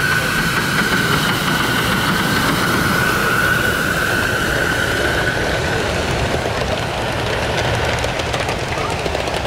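Ride-on scale live steam locomotive running past with a train of cars: a steady high-pitched steam hiss, which fades out about halfway through, over the noise of the train rolling on the rails.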